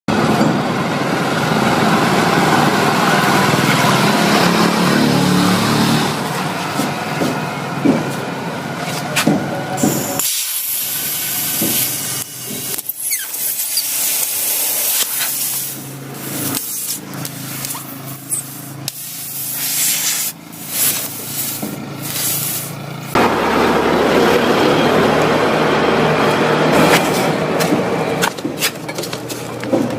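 Compressed air hissing loudly in two long spells, typical of a tyre air line at work on a tubeless tyre repair. Between the spells is a quieter stretch with scattered clicks and knocks.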